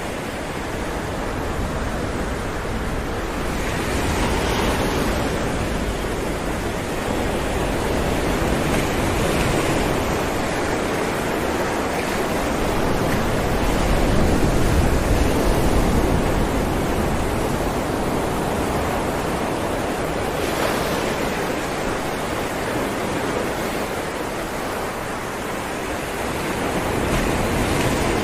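Ocean waves breaking against rocks: a continuous rushing surf that swells and eases slowly, loudest around the middle, with wind on the microphone.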